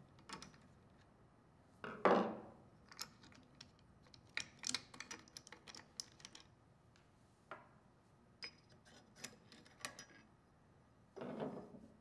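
Small metal clicks and clinks from a T-handle hex key turning out the mounting bolts of a Kimray Gen II liquid level controller's steel retainer, with the loose bolts and retainer being handled. A louder knock comes about two seconds in and another near the end.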